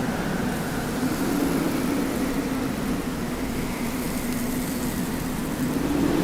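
Wind blowing in a steady rush, with a low wavering tone running through it that swells a little near the end.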